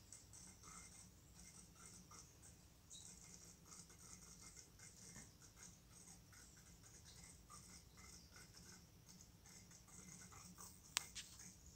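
Faint fizzing crackle of air bubbles streaming from an aquarium internal filter's outlet, over a low hum. A single sharp click near the end.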